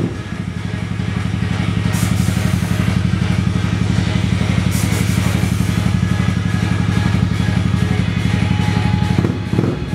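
Custom Yamaha Majesty C big scooter, fitted with a Suzuki Skywave engine, idling steadily. There are two short hisses, about 2 and 5 seconds in.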